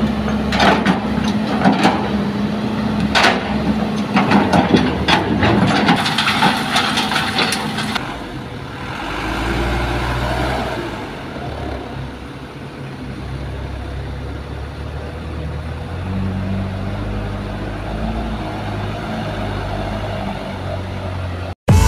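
Hitachi hydraulic excavator's diesel engine working under load, with sharp knocks of rock and soil against the bucket over the first several seconds. Later, the steady low running of diesel dump truck engines.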